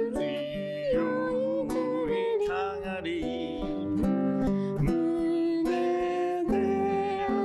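A man singing a slow song in long held notes to strummed acoustic guitar.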